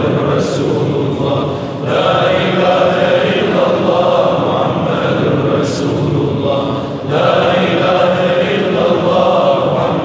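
A congregation of men chanting dhikr (zikr) in unison, repeating one phrase over and over. Each repetition lasts about five seconds, with a short break and a brief hiss between phrases.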